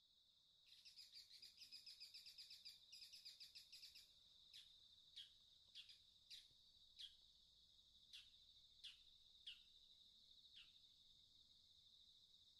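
Faint bird calls in woodland: a rapid chattering trill for about three seconds, then a series of about nine short, falling whistled notes. A steady high-pitched tone runs underneath.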